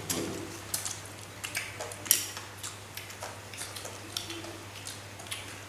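Eating by hand from a shared plate: grilled muscovy duck being torn and chewed, with scattered small clicks and one sharp knock about two seconds in, over a low steady hum.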